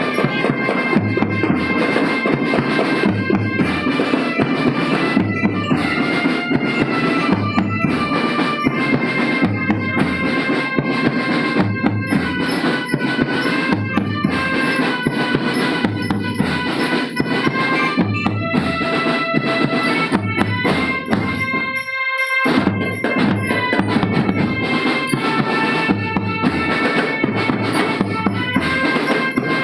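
A school marching drum band playing: a regular bass drum beat with snare drums under sustained melody notes. The low drums drop out for a moment about 22 seconds in, then pick up again.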